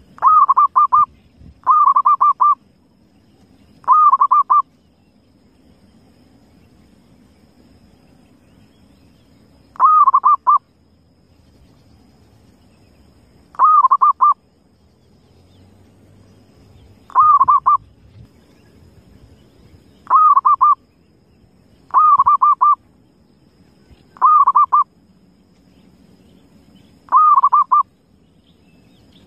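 Zebra dove (perkutut) cooing: about ten short phrases of rapid trilled notes, each under a second, spaced irregularly two to six seconds apart, over a faint low rumble.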